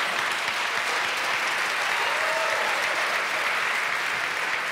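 Studio audience applauding, many hands clapping at a steady level throughout.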